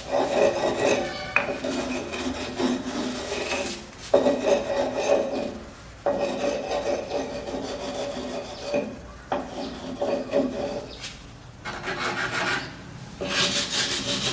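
Hand-held abrasive stone scraping over hardened cement, rubbed in repeated spells of strokes with short pauses between them, grinding down rough, bumpy spots on the surface.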